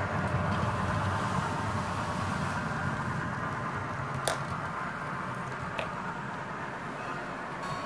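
Model train running on the layout: a steady rumble of the locomotive's sound-equipped engine and its wheels on the track, with two sharp clicks about four and six seconds in.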